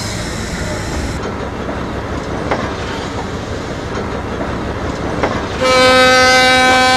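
Locomotive running with a brief hiss at the start and a few knocks. About five and a half seconds in, its horn sounds one long, steady, loud blast, signalling departure.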